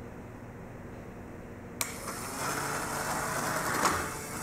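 A switch clicks about two seconds in and the small electric fan on a wheeled fan cart starts up, whirring steadily as it pushes the cart along. A light tick sounds near the end.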